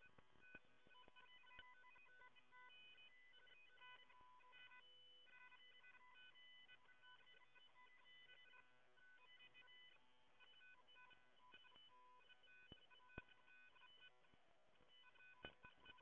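Near silence, with faint, intermittent electronic beeping tones and a few soft clicks.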